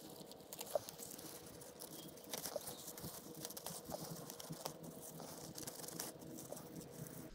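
Red leaf lettuce leaves rustling, snapping and crinkling as they are cut with a knife and gathered by hand, a run of light crackles and clicks.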